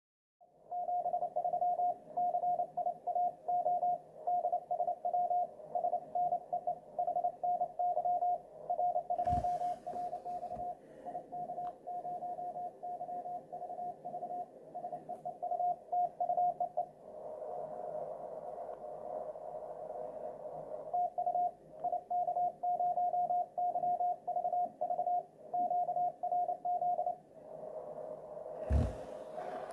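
Morse code (CW) received on a Yaesu FTDX3000 ham transceiver: a tone of about 700 Hz keyed on and off in dots and dashes over faint band hiss, as the MFJ-464 decodes it. Two dull thumps come about nine seconds in and near the end.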